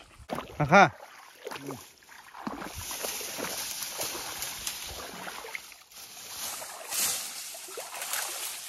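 A short shout just under a second in, then water sloshing and splashing with rustling brush as a person wades in shallow muddy water and pulls at roots and dead branches along the bank.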